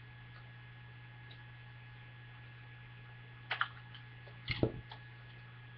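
Steady electrical mains hum, with a few sharp clicks and a soft knock about three and a half to five seconds in, from handling a Crosman 3357 pellet revolver in its leather belt holster.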